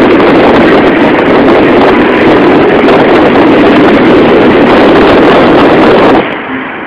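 Heavy wind buffeting on the microphone from a moving car, a loud, even rushing noise that drowns out the music and cuts off suddenly near the end.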